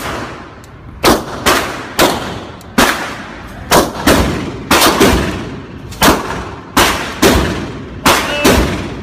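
Semi-automatic pistol shots fired at an indoor range, about a dozen at uneven intervals, some in quick pairs, each followed by a ringing echo off the range walls.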